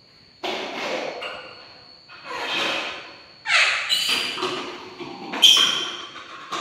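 A wooden door knocking and rattling several times as a small monkey jumps at it and pulls on it, each knock sudden and echoing off a tiled floor and walls.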